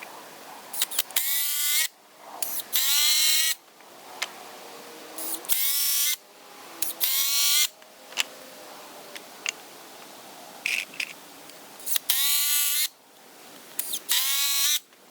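Power drill driving deck screws into pine boards: six short bursts in three pairs, each a whine that rises in pitch as the motor spins up, with small clicks between.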